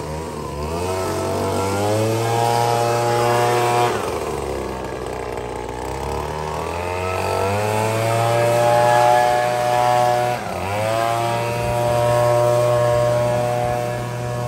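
Handheld leaf blower running loud and steady. Its pitch drops about four seconds in, then climbs back up. It dips briefly again around ten seconds in before recovering.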